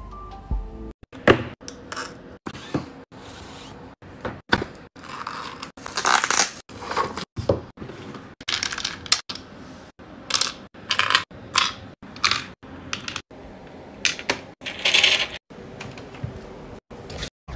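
Small hard plastic pieces clattering and rustling as a hand rummages through them, in irregular bursts broken by several abrupt cuts.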